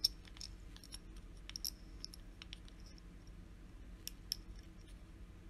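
Light metal clicks and ticks as a small adjustable wrench is fitted and settled onto the flat spot of a fountain pen's metal end. The sharpest clicks come at the very start and about four seconds in, with a few smaller ones in between.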